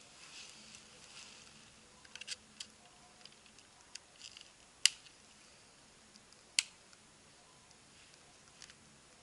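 Clicks from a trail camera being handled and reset on a tree: soft rustling at first, a scatter of light ticks, then two sharp snaps nearly two seconds apart around the middle.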